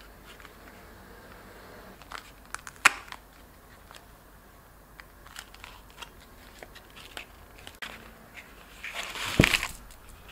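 A small cardboard chocolate box being handled and opened, with scattered clicks and crinkles and a sharp click about three seconds in. Near the end comes a louder rustle and crinkle with a soft thump as foil-wrapped chocolate hearts are shaken out of the box.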